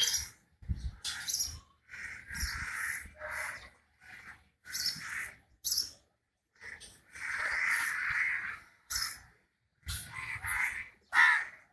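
Harsh, screechy animal calls in irregular bursts of up to about a second and a half, with short silences between them.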